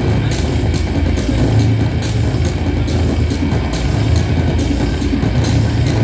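Live electronic noise music played through a PA: a loud, dense low drone with regular short hissing pulses riding over it.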